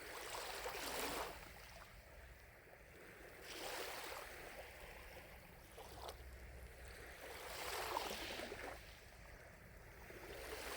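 Small lake waves lapping at the shore, a soft wash swelling and fading every two to four seconds.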